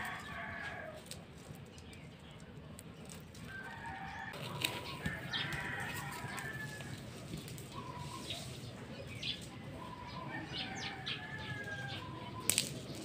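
Nylon fishing line being pulled and handled, a soft rustle with scattered light clicks, while a bird gives short calls in the background every few seconds.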